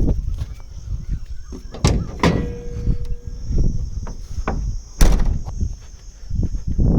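Excavator cab door being opened, with knocks and thumps as someone climbs out of the cab. The loudest, sharpest knock comes about five seconds in.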